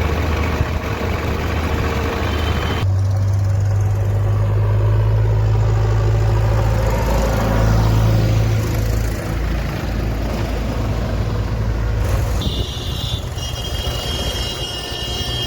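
Diesel engines of working earthmoving and farm machinery running steadily. The sound changes abruptly twice, and high steady tones join near the end.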